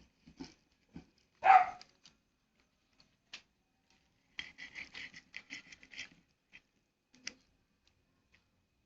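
A dog barks once, short and loud, about a second and a half in. Scattered small clicks come before it, and a quick run of light ticking sounds follows from about four and a half to six seconds.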